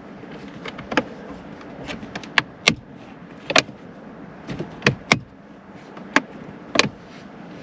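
Irregular sharp clicks and taps of a plastic trim piece being pressed and worked into a car's interior trim panel, about a dozen in all, over a faint steady hum.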